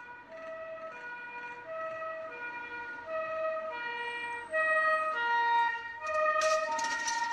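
Two-tone ambulance siren alternating between a high and a low note, growing steadily louder as it approaches. A hissing noise joins it near the end.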